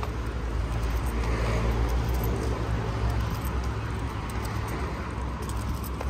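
Street ambience: a steady low rumble of road traffic, swelling slightly in the middle, with faint scattered ticks.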